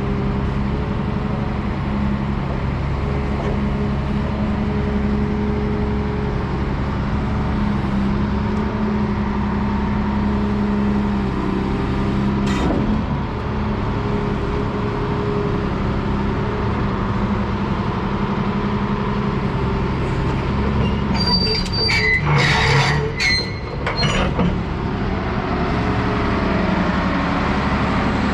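Volvo EC360B excavator's D12D six-cylinder diesel engine running steadily. There is a single sharp clank about halfway through, and a burst of clanks and high squeals near the end.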